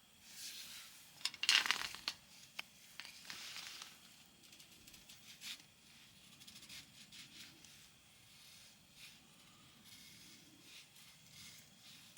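Rustling and tearing of something being handled, in a few noisy bursts with sharp clicks over the first four seconds, then only faint small clicks and taps.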